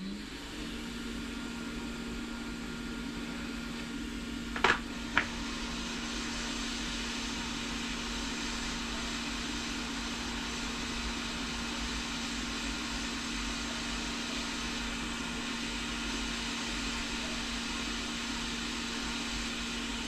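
Hot-air rework station gun blowing steadily: a fan hum with an even rush of hot air, used to heat a shorted capacitor off a circuit board. Two sharp clicks about five seconds in.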